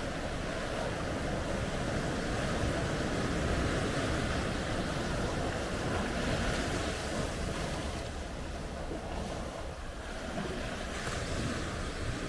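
Small sea waves breaking in the shallows and washing up over dark sand and rounded rocks, a continuous rushing wash. It swells for a few seconds after the start and eases off past the middle.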